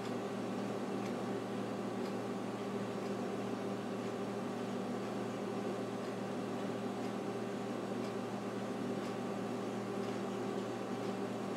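Steady humming background noise of a running kitchen appliance or fan, with faint light ticks every second or two.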